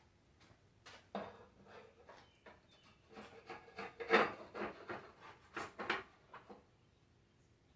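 Thin wooden strips knocked and rubbed against each other as they are handled: a string of irregular light clatters and scrapes, loudest about four seconds in.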